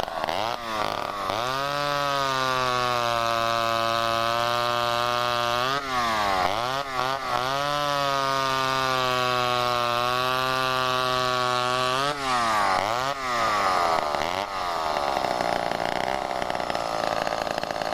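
Vintage two-stroke chainsaw being revved: held at high revs for a few seconds twice, with quick throttle dips and blips between, then settling to a lower, rougher run near the end.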